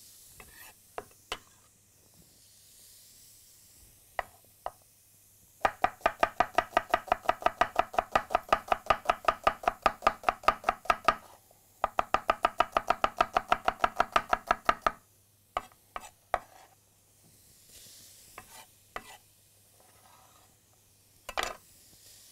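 Chef's knife rapidly slicing an onion thin on a slatted wooden cutting board: two runs of quick, even strokes, about six a second, separated by a short pause. Scattered single knocks and taps come before and after the runs.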